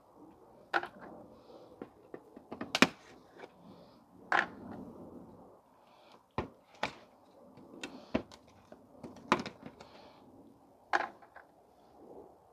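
Plastic push-pin trim clips being pried out of a Honda Civic's front bumper cover: about eight sharp snaps and clicks at uneven intervals, the loudest a little under three seconds in.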